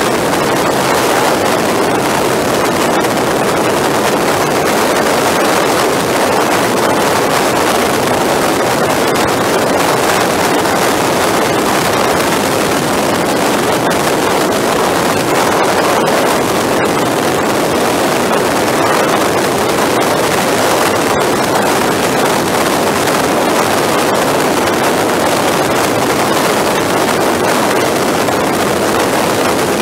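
Steady rush of wind on the microphone together with the road and engine noise of a motorcycle riding at highway speed, with no changes.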